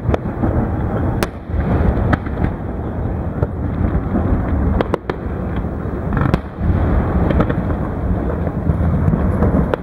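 Aerial fireworks shells bursting: several sharp cracks at irregular intervals over a continuous low rumble.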